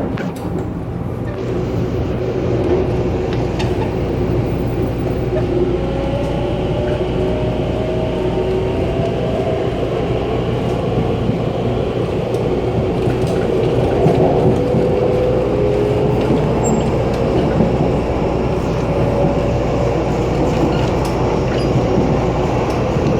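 Taiwan Railways TEMU2000 Puyuma tilting electric train running at speed, heard at the gangway between two carriages: a steady rumble and rattle of wheels, bogies and the car connection. A faint whine rises slowly in pitch, with occasional light clicks.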